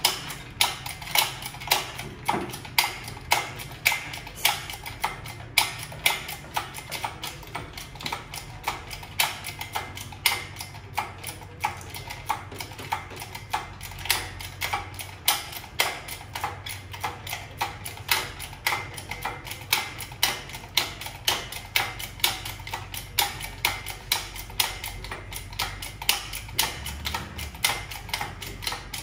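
Steady, even ticking, about two sharp clicks a second, over a faint low hum.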